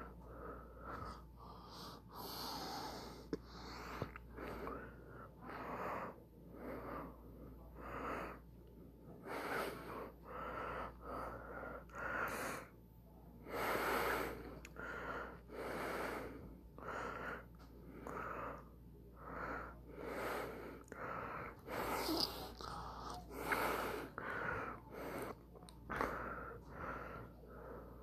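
A person breathing audibly close to the microphone, short noisy breaths in and out about once a second.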